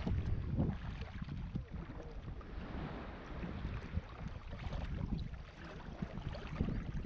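Water sloshing and splashing close to an action camera held at the surface while swimming in the sea, an uneven churning rumble with some wind buffeting on the microphone.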